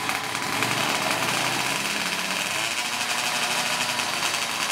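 Tuned 116cc two-stroke drag bike engines running at the start line: a high-pitched buzz held at fairly high revs, with small rises and falls in pitch.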